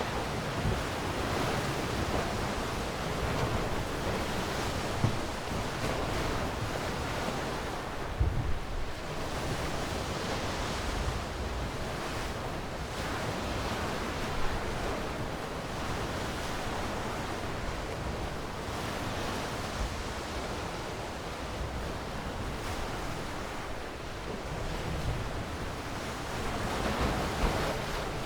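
Sea waves washing ashore: a continuous rushing surf that swells and eases every few seconds, with a few brief low thumps.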